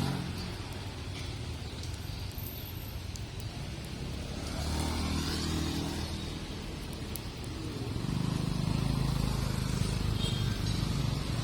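Street traffic on a wet road: motor vehicles passing, their engines swelling and fading about five seconds in and again from about eight seconds, over a steady low rumble.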